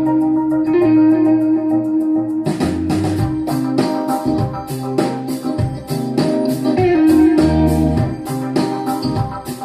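Recorded music played back through 1970s loudspeakers: an instrumental passage with held guitar and organ notes, joined by a steady beat of percussion about two and a half seconds in.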